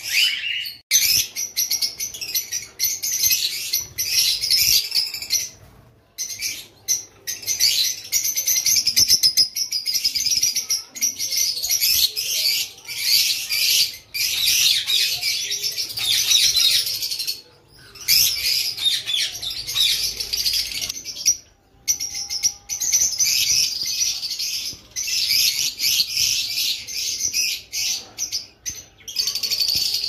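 Lovebirds chattering: a dense stream of rapid, high-pitched chirps and squeaks, broken by several brief gaps.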